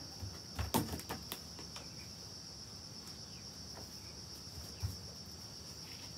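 Steady high-pitched insect chirring. A few sharp knocks come about a second in, and a single dull thump comes near the end.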